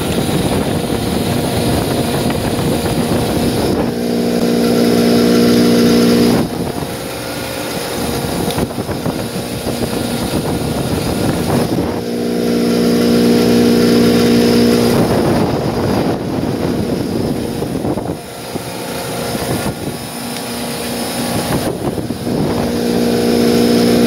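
Walk-in freezer's refrigeration condensing unit running with a steady machine hum that swells louder about four seconds in, around twelve seconds in and near the end, over a rough noisy background. The compressor is being run while refrigerant oil is hand-pumped into its suction line to bring up a low oil level, the cause of its oil-pressure failure.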